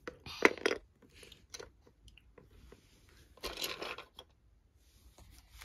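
Baby Alive doll being fed a toy snack and handled: two short crunching bursts, about half a second in and again near four seconds, with light clicks in between.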